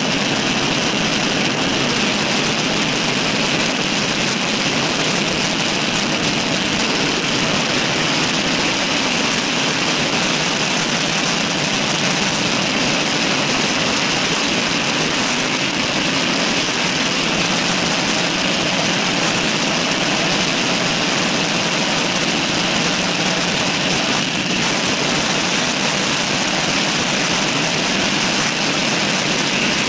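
Steady rush of wind and road noise on a bicycle-mounted camera's microphone while the bike is ridden at speed.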